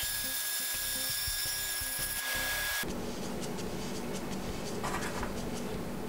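WEN 9-inch bandsaw running and cutting through 2-inch PVC pipe, with a steady high tone that stops about three seconds in, leaving a steady lower hum.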